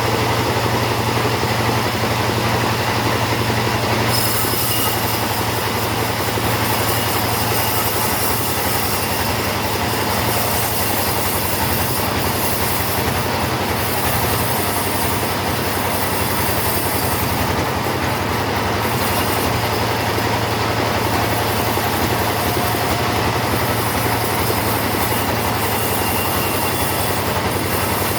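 Chainsaw running under load, cutting through teak wood in one long steady cut; the high hiss of the chain in the wood gets stronger about four seconds in.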